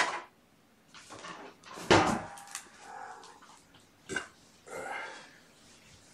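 Kittens playing with cat toys: a few sharp knocks, the loudest about two seconds in, with short bursts of scuffling and rattling between them.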